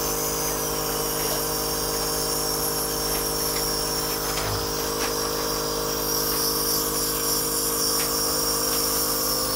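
Nebulizer compressor running with a steady mechanical hum while medication is inhaled through the mouthpiece.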